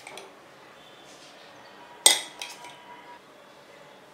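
A metal measuring spoon clinks sharply against the ceramic mixing bowl about two seconds in. A couple of lighter clinks and a brief ringing follow.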